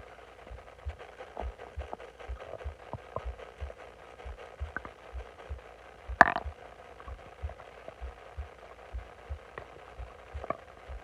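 Bloated stomach growling: scattered small gurgling pops and clicks, with one louder gurgle a little past six seconds in, over a faint, regular low thudding.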